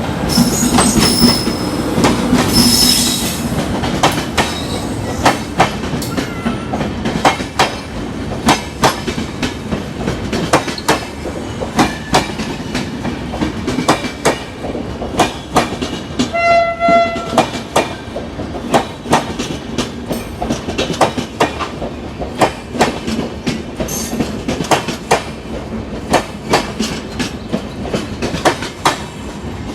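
A passenger express train rolling into a station: its coaches clatter past with a steady clickety-clack of wheels over the rail joints. There is a brief high squeal in the first few seconds and a short horn blast a little past the middle.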